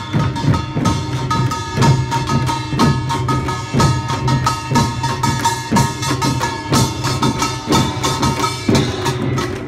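A large drum group playing together: heavy strokes land about once a second with quicker, lighter strokes between them. A held low note and a steady pitched melody run over the drumming.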